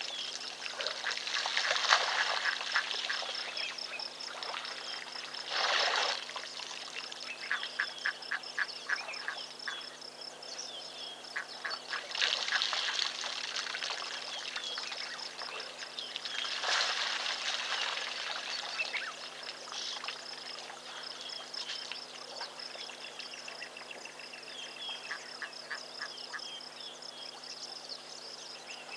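African elephant drinking: water splashing and pouring from its trunk, about four times, each for a second or so. Between them come trains of rapid clicking animal calls and a steady high-pitched whine.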